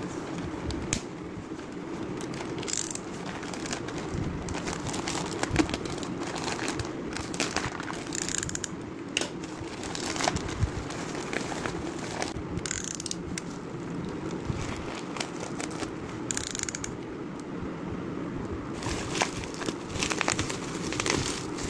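A plastic courier mailer bag being pulled and torn open by hand, with irregular crinkling, rustling and crackling snaps. Near the end, the bubble wrap around the item inside is handled and crinkled. A steady low hum runs underneath.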